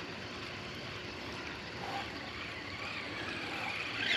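Steady, even hiss of open-air lake ambience around a small boat, wind and water with no distinct events.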